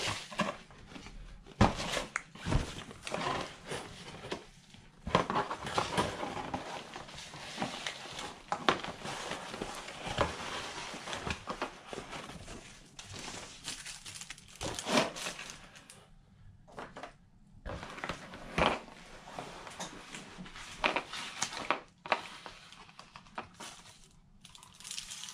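Shredded crinkle-paper packing fill and a cardboard box being handled: irregular rustling and crinkling, with scattered knocks and taps as items are lifted out and set down.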